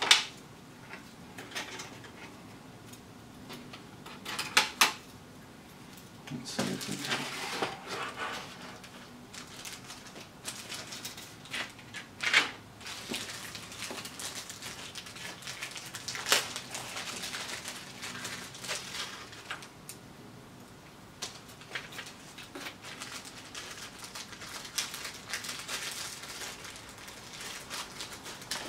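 Small plastic zip bags of electronic components handled and set down on a cutting mat: crinkling rustles with scattered light clicks and clatters of the parts inside, a few sharper knocks standing out.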